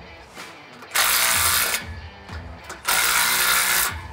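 Cordless impact driver hammering bolts tight, in two bursts of about a second each, one about a second in and one near the end. It is snugging down the bolts that hold a steel stand leg.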